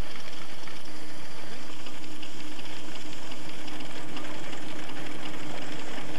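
Steam-driven threshing machine running steadily, its drum and shakers giving a dense clattering rush with a steady hum over it.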